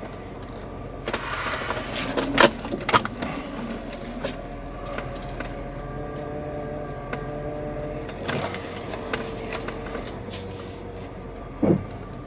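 Inside the cabin of a moving Jeep Cherokee: a steady low engine and road hum, with scattered clicks and knocks, a noisier stretch of rattling clicks about a second in, and a short thump near the end.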